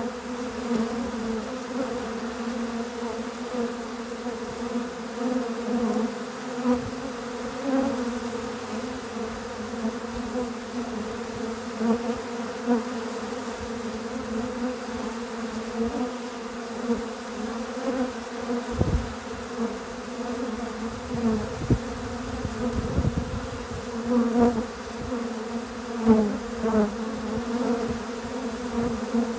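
A mass of honey bees at a feeder humming steadily, their wingbeats making one steady pitch with an overtone above it. Now and then a bee buzzes close by with a brief slide in pitch, mostly near the end, and a few low rumbles come about two-thirds of the way through.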